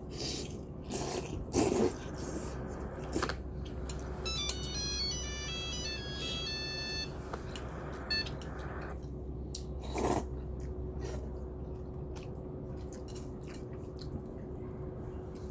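Nokia mobile phone playing a short ringtone melody of quick, high-pitched electronic notes for about three seconds, a few seconds in. Scattered clicks and a couple of louder knocks fall around it.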